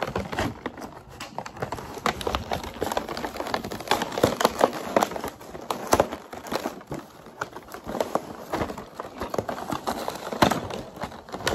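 Toy packaging being handled and pulled open: a cardboard box and a clear plastic tray crinkling and crackling, with many small irregular clicks and knocks and a few sharper ones.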